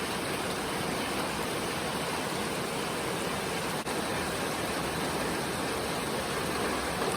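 Heavy rain falling in a steady, even hiss, with a momentary dropout about four seconds in.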